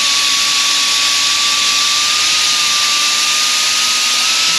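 Small right-angle grinder with a sanding disc running steadily against a brake pad's friction surface, a high, even whine over a loud hiss. It is scuffing the glaze and grooves off a worn pad so it can bed in again with a fresh surface.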